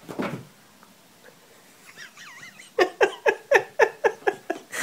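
A brief thump as the scratching mat is flipped over, then near the end a rapid run of short animal calls, about four a second, each dropping a little in pitch.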